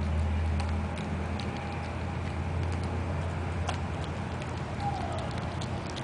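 Shih Tzu chewing a carrot: sparse, irregular small crunching clicks over a steady low hum.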